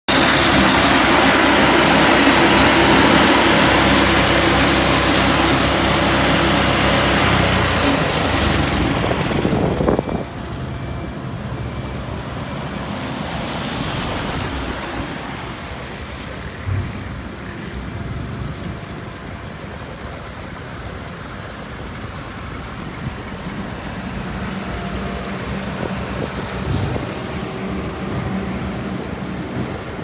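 Petrol-engined walk-behind road saw cutting through asphalt: a loud steady grinding with the engine running under it. About ten seconds in it gives way to quieter road-site noise, a road roller's engine with passing traffic and wind.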